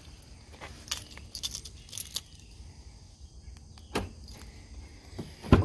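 Keys and a key fob on a lanyard jingling and clicking in the hand, a scatter of light metallic clicks, then a louder thump near the end.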